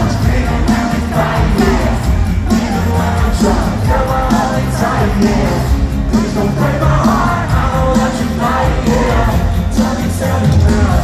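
A live rock band playing loud, with a steady drum beat and singing over the top.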